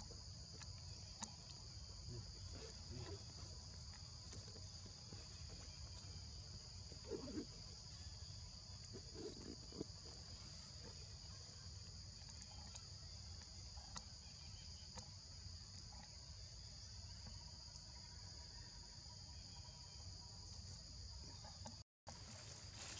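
Steady high-pitched insect drone, faint, over a low rumble of background noise, with a couple of soft short sounds around seven and nine seconds in.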